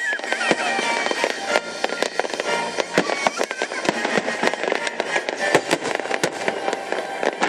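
Fireworks display: a dense, continuous run of bangs and crackling from bursting shells, with music playing underneath.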